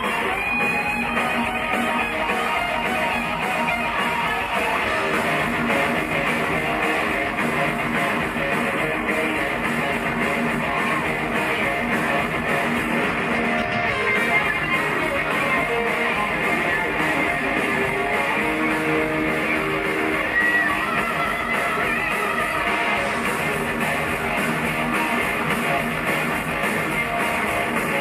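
Heavy metal band playing live, led by distorted electric guitars, heard from within the theater audience.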